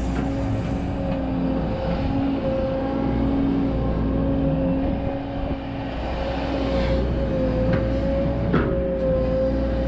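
Volvo EC140DL hydraulic excavator's diesel engine and hydraulic pump working under load while digging a trench and swinging a bucket of soil, with a steady whine that wavers slightly. There is a brief knock near the end.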